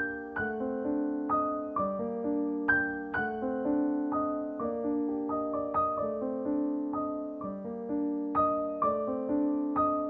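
Background piano music: a gentle melody of single struck notes that each fade, played in an even, flowing pattern.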